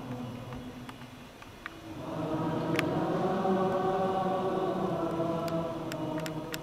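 A choir singing slow, held chords. One phrase fades out about a second and a half in, and a fuller, louder one begins at about two seconds.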